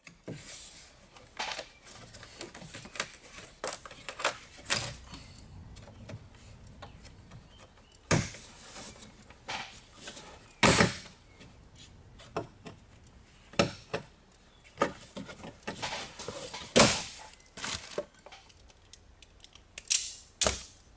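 Irregular clicks, knocks and rustles of hands working wiring and a plastic trim panel in a car's boot, with one sharp snap about eleven seconds in, then hand tools clattering as a ring terminal is crimped onto an earth wire.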